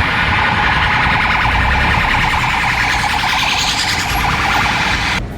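Loud, rapidly pulsing electronic siren or alarm on a street, cut off abruptly near the end.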